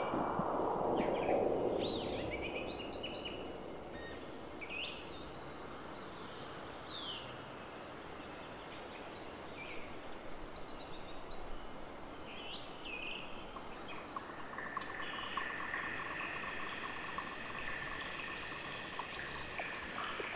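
Electronic drone sounds from a Pure Data Automatonism synth patch: scattered short chirps and pitch glides over a hiss, a broad rushing noise fading over the first few seconds, and a steady chord of high tones coming in about two-thirds of the way through.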